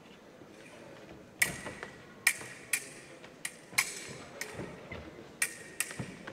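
Foil blades clashing in an exchange: about seven sharp, ringing metallic clicks in quick irregular succession, starting about a second and a half in, with duller thuds of footwork on the piste among them.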